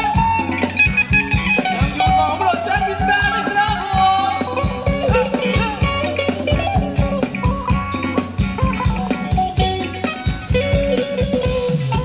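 Live band playing Thai ramwong dance music: a steady drum beat under a wavering melody line, with guitar and percussion.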